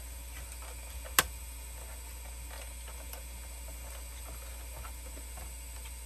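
A single sharp click about a second in, then faint small ticks, as the DVD drive of a Dell OptiPlex 7010 small-form-factor PC is pulled loose from its drive bay.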